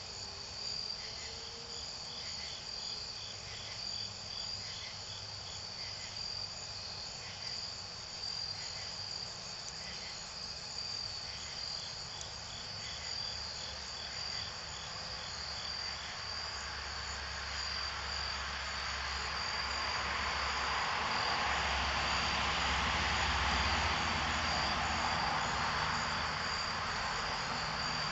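Crickets trilling steadily, with trains of quick chirps in the first half. From about halfway in, a broad rumbling rush swells up and is loudest in the last third.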